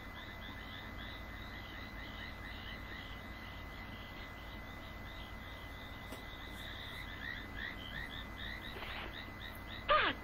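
Wildlife chorus of short, rapidly repeated chirping calls, steady throughout. Near the end a single loud call slides sharply down in pitch.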